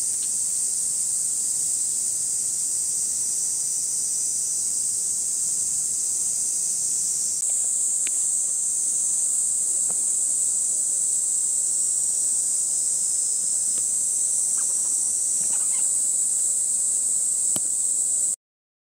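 Steady, high-pitched chorus of insects droning without a break, with a few faint clicks and rustles over it. It cuts off abruptly near the end.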